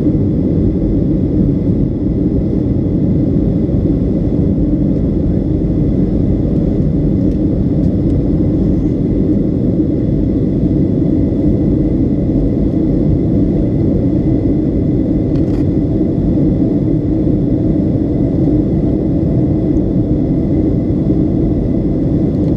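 Steady cabin roar of a Boeing 757-200's engines and rushing air during the climb after takeoff, heard inside the passenger cabin, with faint steady high whine tones above the low rumble.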